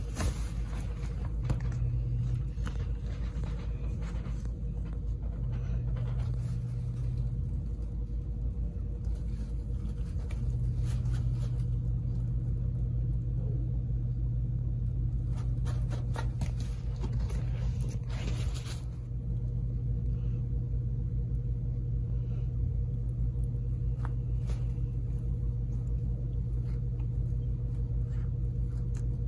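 A steady low mechanical hum, with soft scattered rustling and scratching as a kitten bats and claws a plush mouse toy inside a fabric play tunnel; the rustling is busiest about two-thirds of the way through.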